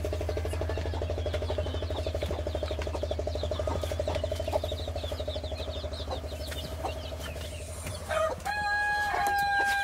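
A rooster crowing near the end: one long, held call. Before it, a steady low drone with a fast, even pulse that fades away shortly before the crow.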